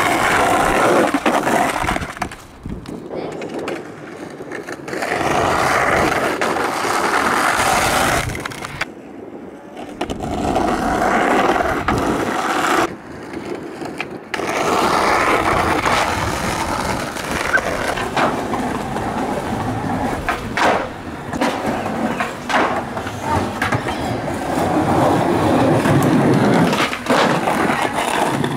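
Skateboard wheels rolling on concrete, with sharp cracks of the tail popping and the board landing. It comes in several short takes that break off abruptly.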